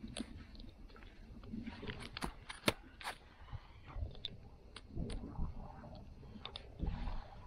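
Snowshoe bindings being strapped and tightened by hand: scattered clicks and rustling scrapes of straps and buckles, with light crunching of packed snow underfoot.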